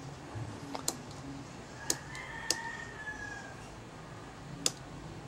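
Four sharp clicks of switches and knobs on bench electronic test equipment being operated, over a low steady hum.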